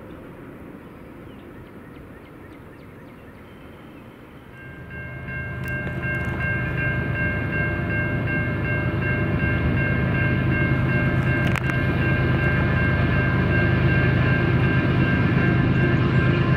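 Diesel locomotive air horn sounding a chord of several steady tones, starting about four and a half seconds in and held to the end, over the engine's low rumble, which grows louder as the train approaches.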